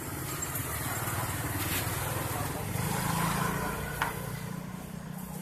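A passing motor vehicle on the road: a steady engine hum that grows louder to about three seconds in, then fades. A single short click about four seconds in.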